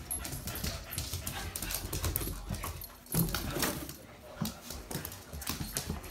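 Two puppies, a cockapoo and a French bulldog–pug cross, play-wrestling: irregular scuffling, with claws clicking and scrabbling on a wooden floor.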